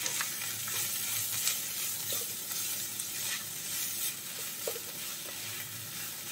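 Crumbled cauliflower with onion sizzling in oil in a nonstick pan while a wooden spatula stirs and scrapes through it: a steady sizzling hiss with soft, irregular scrapes.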